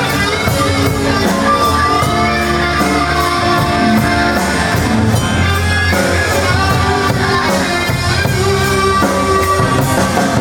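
Instrumental break of a rock song: guitar carries the melody over bass and a steady drum beat.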